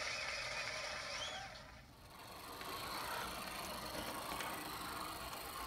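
Small model train locomotive running along the track: a steady electric motor whir with wheel noise. It drops away briefly about two seconds in and then runs again, with a few light clicks.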